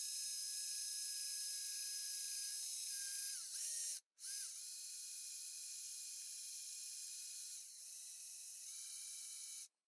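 Bosch cordless drill running under load as it drills into a steel bracket: a steady high motor whine that stops for a moment about four seconds in, starts again, shifts slightly in pitch a few times as the load changes, and cuts off just before the end.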